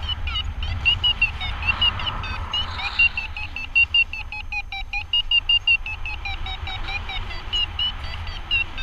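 Paragliding variometer beeping rapidly: short high beeps, about five a second, with small changes in pitch, the climb tone a vario gives in rising air. Wind rumbles on the microphone underneath.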